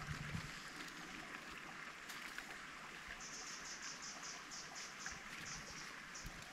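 Steady hiss of a forest stream running, with a quick run of short, high chirps, about five a second, starting about three seconds in.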